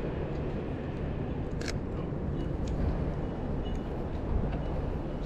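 Steady low rumble of city street traffic. One sharp click, a camera shutter, comes about a second and a half in, with a few fainter ticks after it.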